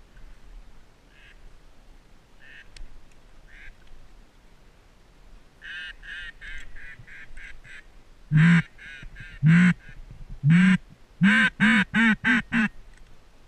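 Mallard-style quacking from a duck call blown close by: a few faint quacks, a quick run of notes, then loud raspy quacks, three spaced out and then a rapid string of five.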